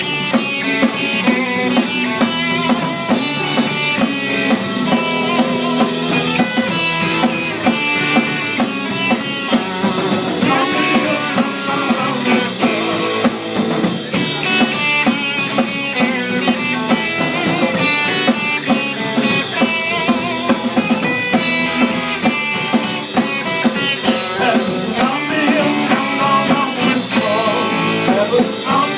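Instrumental surf rock band playing live: electric guitars over a drum kit, with a steady beat.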